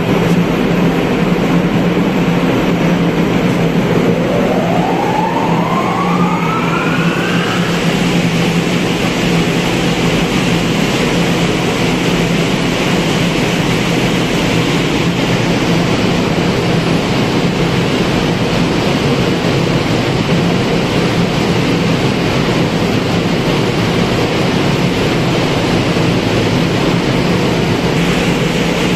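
Kangrim auxiliary boiler's forced-draft fan starting against the steady hum of engine-room machinery: about four seconds in, a rising whine climbs for some four seconds as the fan spins up, then settles into a louder steady rush of air as it runs at speed.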